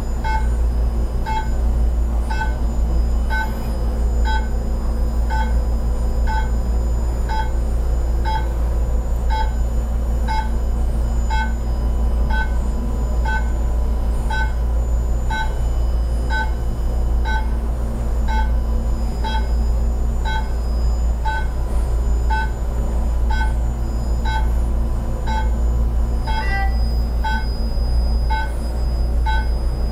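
Therapy laser beeping steadily while it emits: short beeps about three every two seconds, over a steady low hum.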